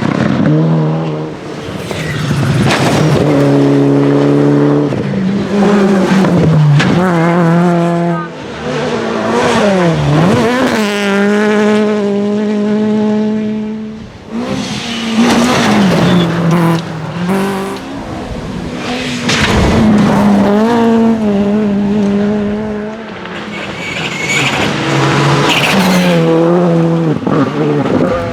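Rally cars at full throttle, engines revving up hard and dropping in pitch with each gear change, with tyre squeal as they slide through corners and pass by.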